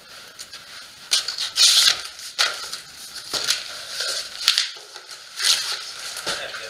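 Large corrugated cardboard shipping box being handled: its flaps drag and scrape in a series of irregular rustling scrapes, the loudest about two seconds in.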